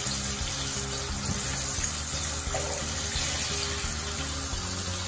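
Breaded chicken deep-frying in hot oil, a steady sizzle with soft background music of held notes over it.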